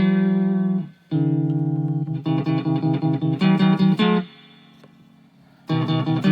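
Guitar chords played clean. One chord rings, then there is a quick run of repeated strummed chords that stops about four seconds in, and after a short pause the strumming starts again near the end.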